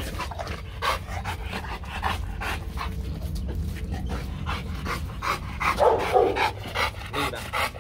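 Rottweiler panting quickly and evenly, with a short louder sound from the dog about six seconds in.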